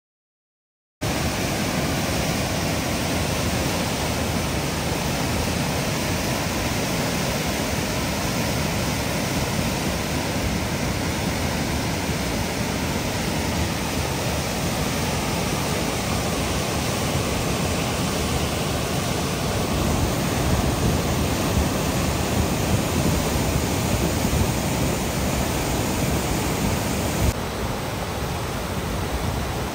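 Floodwater rushing through a swollen creek and a concrete flood-control channel: a steady, dense roar of water that starts about a second in and drops slightly in level near the end.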